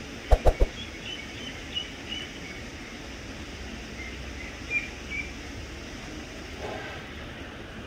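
Outdoor background noise with faint, short bird chirps scattered through. Three quick thumps sound about half a second in.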